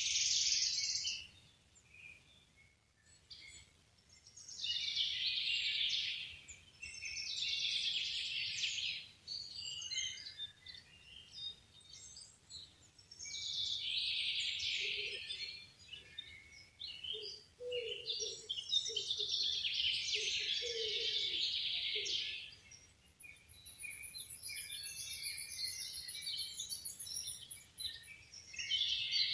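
Songbirds singing in repeated bright phrases of about two to three seconds each, with short pauses between them. A run of low short notes comes in around the middle, and a thin high steady tone holds for several seconds later on.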